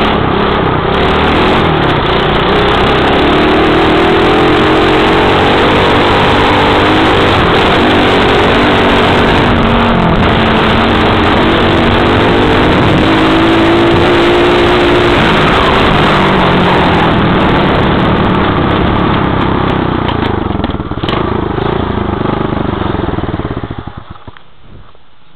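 Apollo AMD1 125cc dirt bike engine running under way, its pitch rising and falling as the throttle is worked. The engine sound drops away sharply near the end.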